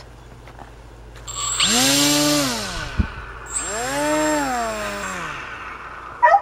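Electric airplane motor and propeller on a foam-board RC boat, throttled up twice to lift the bow: each burst is a whine that rises and then falls away, with a rush of propeller air.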